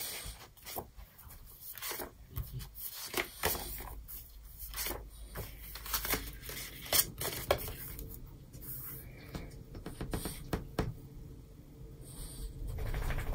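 Paper sticker-book pages being flipped and sticker sheets handled: a run of crisp rustles and flicks, with a longer rustle near the end.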